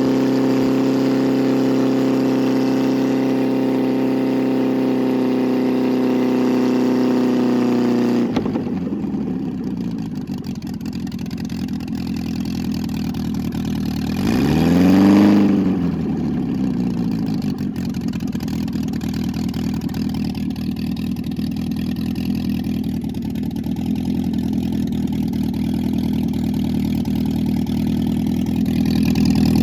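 Freshly rebuilt MGB 1800 four-cylinder engine running without a muffler: held at a steady raised speed, it drops to a lower idle about eight seconds in, gets one quick blip of the throttle around the middle, then idles on, rising a little near the end.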